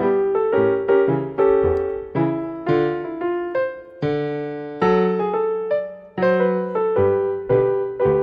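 Background piano music: a gentle melody of single struck notes, about two a second, each fading away before the next.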